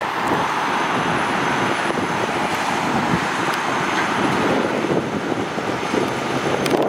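Steady road traffic noise, with a car driving past on the street.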